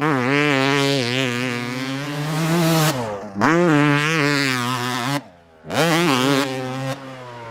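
Motorcycle engine revving sound made for a toy motocross bike: three long revs, each rising in pitch at the start and then wavering, with short breaks between.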